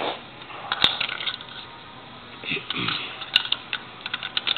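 Hard plastic Lego figures clicking and clacking against a hard floor as they are moved by hand. There are two sharp clacks, about a second in and at about three and a half seconds, among lighter ticks.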